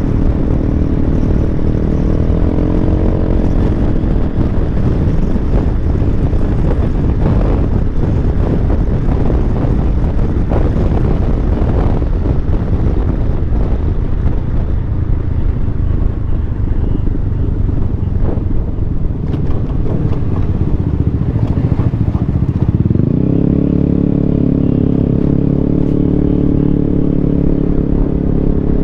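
Yamaha X-Max maxi-scooter riding along, its engine running steadily under a rush of wind on the microphone. The engine note climbs briefly a couple of seconds in, sinks under the wind noise through the middle, then rises again about 23 seconds in and holds higher.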